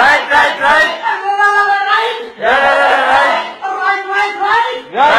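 Loud high-pitched singing voice, held notes that waver in pitch, in short phrases with brief breaks.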